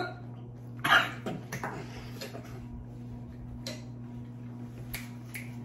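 A person chewing a mouthful of pasta, with a few faint mouth clicks and one short louder sound about a second in, over a steady low hum.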